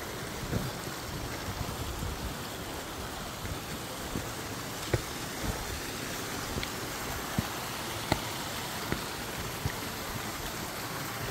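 Steady rush of a small mountain stream running over rocks, with a few sharp taps of footsteps on stone steps.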